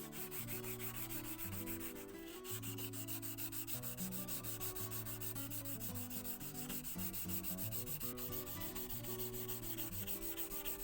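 Steel chisel blade rubbed back and forth on dry sandpaper in quick, even strokes, sanding off rust and grime to restore it, with background music playing underneath.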